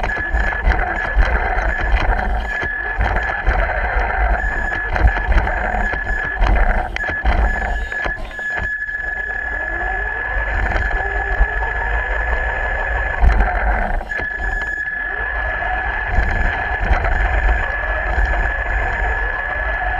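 Radio-controlled car driving across a concrete floor, heard from on board: a steady high motor whine that drops out briefly now and then and glides in pitch as it slows and speeds up, over a low rumble of the wheels rolling.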